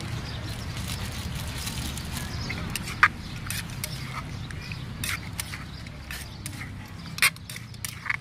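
Seafood papaya salad being tossed by hand in a clay mortar: scattered clicks and knocks of ingredients and utensils against the clay, two sharper ones about three seconds in and near the end, over a steady low background hum.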